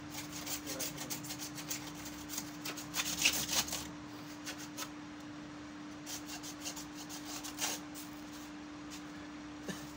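Bristle brush scrubbing in quick, repeated scraping strokes, loudest about three seconds in, pausing briefly, then resuming for a few more strokes.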